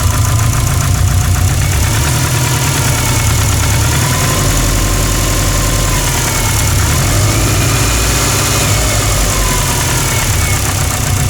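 Subaru's built turbocharged flat-four EJ engine idling steadily with a rhythmic, hammering knock. The owner takes the knock for piston slap from the skirt of the No. 4 forged piston.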